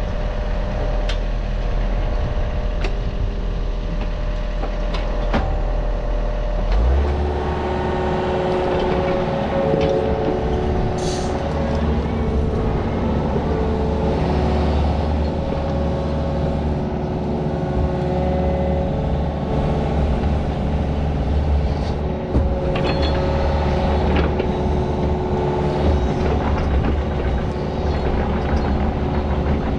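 Heavy earthmoving machine engine running steadily, its note stepping up about seven seconds in as it works under throttle, with whining tones that shift in pitch.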